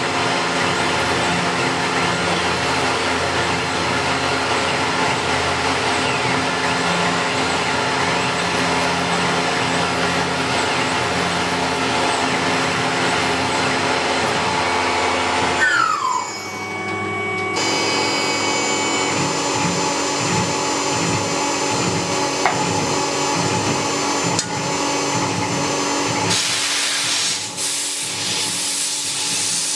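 CNC milling machines cutting metal: steady machine noise with whining tones, changing abruptly several times as one cut gives way to another, and a steady hiss taking over near the end.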